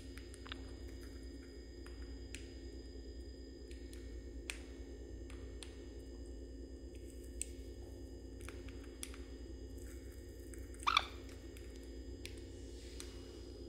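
Steady low room hum with scattered faint clicks and taps. About eleven seconds in comes one short, high call from a pet parrot, a sun conure, the loudest sound here.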